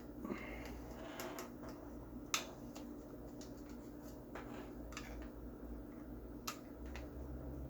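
Small screwdriver working out the screws inside an airsoft rifle's pistol grip: scattered light clicks and ticks, with two sharper clicks, one about two seconds in and one near the end, over a faint steady hum.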